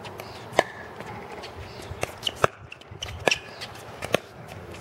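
Pickleball rally: sharp pops of paddles hitting the hollow plastic ball, with the ball's bounces on the hard court in between. They come irregularly, several in quick succession near the middle.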